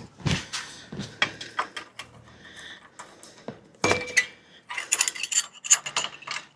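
Metal tools and parts clinking and clattering in a series of sharp knocks, with a louder clank that rings briefly about four seconds in and a busy run of small clinks near the end.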